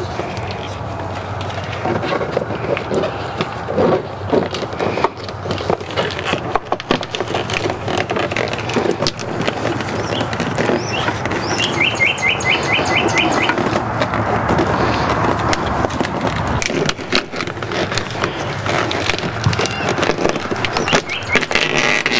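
A bundle of wires in corrugated plastic split loom being forced through a slot in a golf cart's plastic dash panel: continual rustling, scraping and clicking of plastic on plastic. A bird trills briefly about halfway through.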